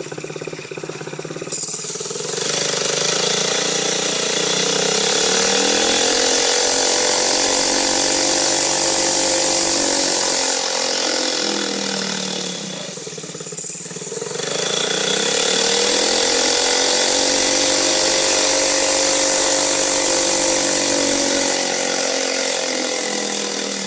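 Small OHV engine running under throttle-by-wire control, its speed set from a hand-turned knob through an electric throttle actuator. It revs up a couple of seconds in and holds high, drops back near the middle, then revs up again and holds before easing down near the end.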